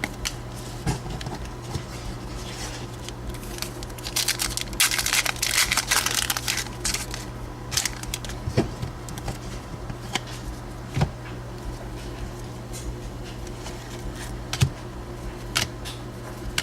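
Foil card-pack wrapper crinkling and tearing for a few seconds, with scattered light clicks and taps of trading cards being handled, over a low steady hum.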